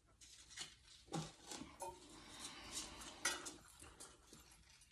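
Scattered light clicks and clinks of toilet tank parts being handled, the loudest click about three seconds in.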